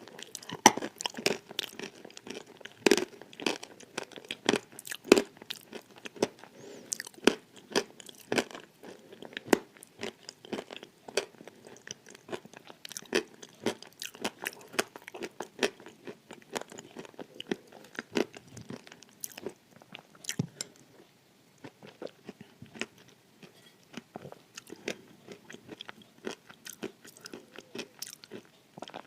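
Close-miked biting and chewing of dry edible clay: a dense run of sharp, brittle crunches, pausing briefly about two-thirds of the way through, then softer, sparser crunches.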